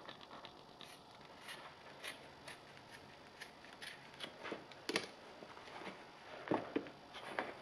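Scissors snipping through the fabric upper of a black high-top sneaker, a short cut about every half second. There is a sharper, louder snip about five seconds in, and a couple of heavier rasps as the cut shoe is pulled apart near the end.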